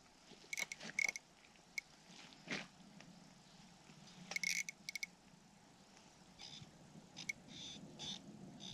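Ice fishing reel clicking in short rapid runs as line goes out or is wound in while a large splake is fought at the hole, with soft scraping and rustling between.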